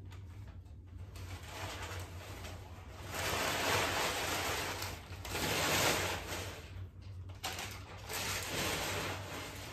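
Newsprint packing paper rustling and crinkling as it is pulled out of cardboard boxes and unwrapped, in several louder stretches of a second or so each.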